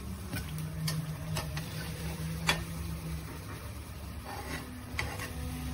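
A slotted metal spoon clicks against an aluminium frying pan a few times, loudest about two and a half seconds in, as fried battered brinjal slices are scooped out of the hot mustard oil. Underneath, the oil sizzles quietly, with a faint steady hum.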